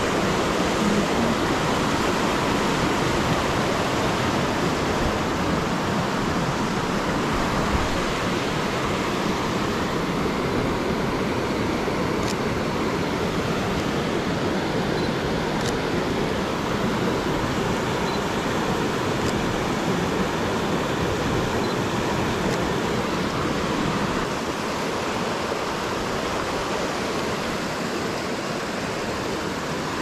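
Steady rush of a rocky mountain creek cascading over boulders.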